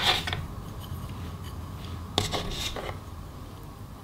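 Chopsticks picked up off a wooden tray and clicking and scraping against a bowl while eating: a sharp click at the start, then a short run of clicks and scrapes a little over two seconds in.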